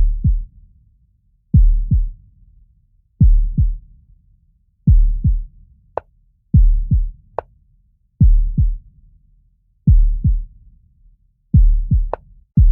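Background music: a deep, heartbeat-like double thump repeating about every second and a half, with a few sharp ticks in between.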